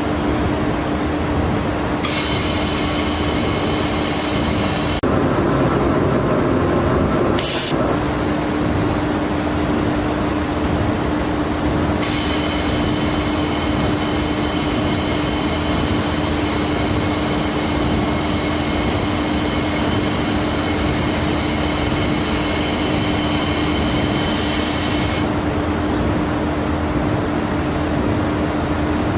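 1 kW fiber laser automatic tube welding machine running: a steady machine hum and noise, with a high-pitched whine added twice, briefly about two seconds in and for a long stretch from about twelve to twenty-five seconds.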